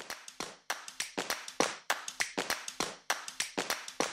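A quick rhythm of sharp claps and taps, about four a second, some louder than others.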